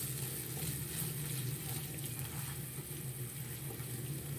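Chopped garlic and cumin seeds sizzling in a teaspoon of hot oil in a nonstick pan, a steady hiss while a spatula stirs them, with a steady low hum underneath.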